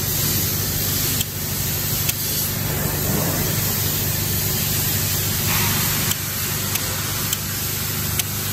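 Intake air heater relay clicking several times at uneven intervals as its trigger lead is touched on and off, showing the relay is switching. The clicks sit over a steady loud hiss with a low hum.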